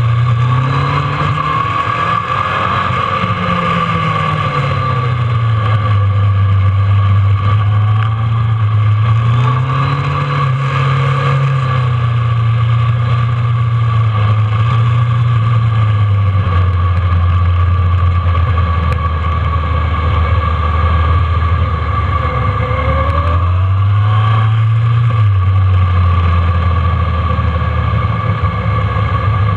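Kawasaki ZRX1200R's inline-four engine running at mid revs. Its note rises and falls repeatedly as the throttle opens and closes through the bends, heard from the rider's seat behind the fairing.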